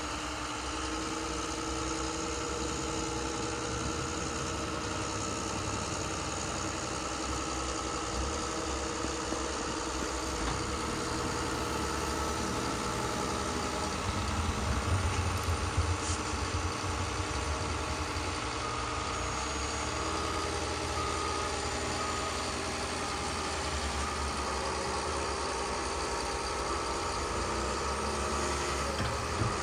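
Radio-controlled hydraulic wheel loader, a Bruder Liebherr L574 with a MAGOM HRC hydraulic conversion, running with a steady engine-idle sound. It gets louder for a few seconds about halfway through.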